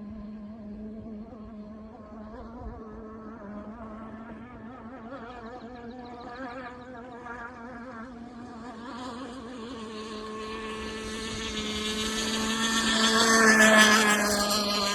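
Engine of a Zippkits SLR Missile Thunderboat RC hydroplane running at speed on the water, a steady wavering drone that grows louder as the boat approaches. It peaks and drops in pitch as the boat passes close, about 14 seconds in.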